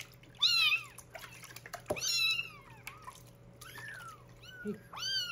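Young kittens mewing during their first bath: about five short, high-pitched cries, each rising then falling.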